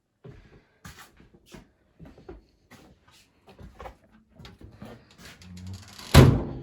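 Irregular light clicks and knocks of handling in a garage, then a low hum building near the end and one loud sharp thump about six seconds in.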